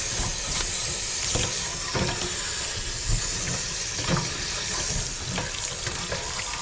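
Jet of water hissing into an RV water heater tank through the element opening, flushing out loose scale, with irregular splashing and water running out of the tank.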